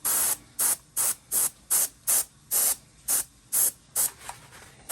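Airbrush spraying paint in short, evenly repeated bursts, about two or three a second.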